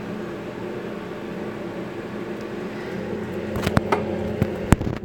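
Steady hum of an electric fan running. Near the end there are a few sharp clicks and knocks as the phone is handled and moved.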